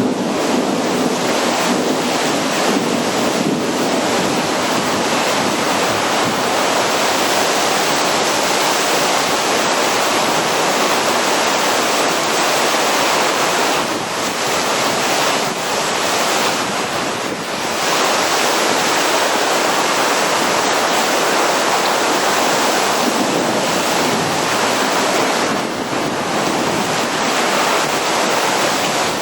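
Torrential rain pouring down in a steady, loud hiss, easing slightly twice for a moment.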